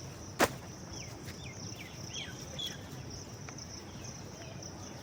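Outdoor daytime ambience: insects keep up a steady high-pitched drone while a bird gives several short falling chirps, with one sharp click about half a second in.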